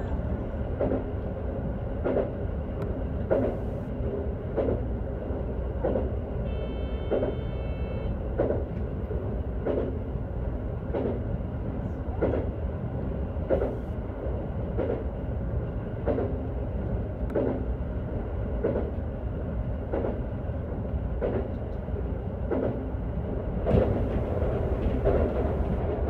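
JR West 321 series electric train running at a steady speed, heard from inside the front car: a steady low rumble with wheels clicking over the rails in an even rhythm of about three clicks every two seconds. About a third of the way in, a brief high ringing tone sounds for a second or two.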